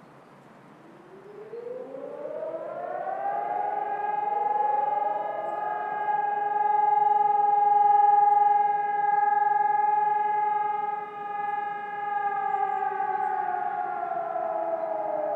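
HELIN electronic civil-defence sirens sounding the monthly test alarm. The tone winds up over about two seconds, holds steady, then starts to fall near the end.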